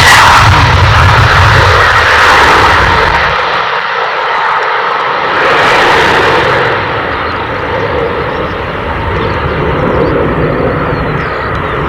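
Airbus A321ceo's twin jet engines at departure power as the airliner climbs away, a loud, steady rush of jet noise that fades and dulls as it moves off.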